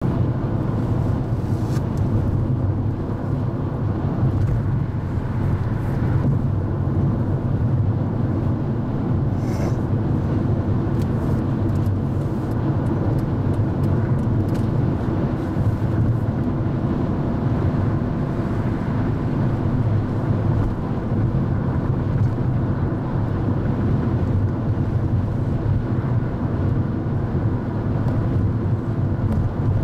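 Steady low rumble of road and engine noise inside a car cabin cruising on a freeway, with a few faint ticks.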